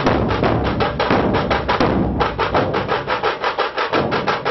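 Dhol-tasha ensemble playing: many large barrel dhols beaten with sticks in a dense, fast rhythm of sharp strokes over deep booming beats. The deep beats thin out about halfway through while the fast strokes go on.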